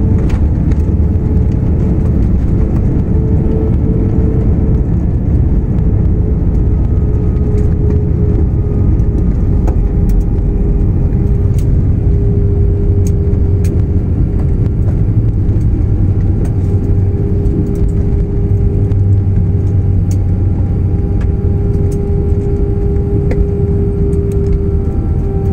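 Airbus A320 cabin noise on the ground after landing: a loud, steady low rumble of the jet engines and the rolling aircraft, with a steady engine whine that drops slightly in pitch about five seconds in.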